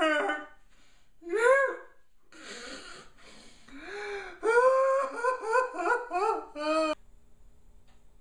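A man sobbing and wailing in exaggerated mock crying, with breathy, wheezing gasps between the cries and a fast run of sobs that breaks off abruptly about seven seconds in.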